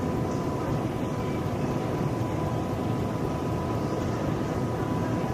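Steady mechanical running noise: an even low rumble with a faint constant whine, unchanging throughout.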